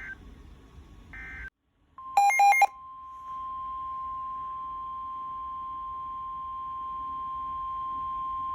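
Short squawks of weather-radio data tones, a brief gap, and a loud, harsh half-second burst of data tones about two seconds in. Then the steady single-pitch NOAA Weather Radio warning alarm tone (1050 Hz) holds from about three seconds on, signalling that a new warning is about to be broadcast.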